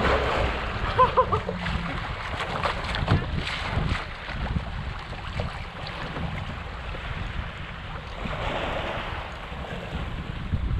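Wind buffeting the microphone and choppy water slapping against a fishing kayak, with a few short knocks and splashes.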